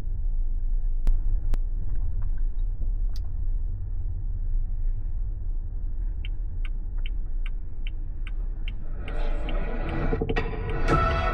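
Low, steady road rumble inside a moving car's cabin. From about six seconds in, a turn-signal indicator ticks evenly, about twice a second, and near the end music from the car's audio system comes in over it.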